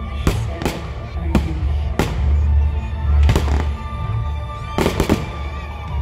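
Fireworks bursting overhead: about eight sharp bangs at irregular intervals, with a close pair near the end, over loud show music with a heavy bass.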